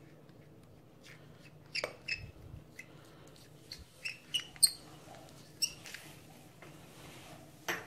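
A spoon scraping and tapping inside a small cup as cocoa powder is scraped out, giving a few scattered light clicks and squeaky scrapes.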